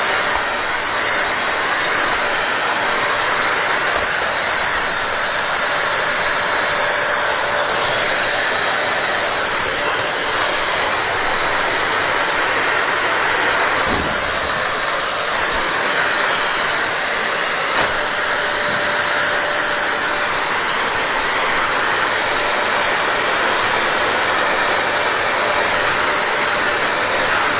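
Stick vacuum cleaner running steadily as it is pushed over the floor: a constant rush of air with a thin high whine from the motor.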